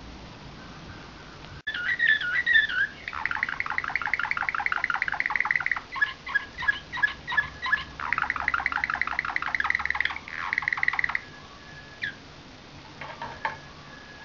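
Slavujar (nightingale-song) canary singing. About two seconds in it opens with a warbled phrase, then runs into long, rapid trills broken by a string of separate, slower notes. The song stops around eleven seconds, and a few short notes follow.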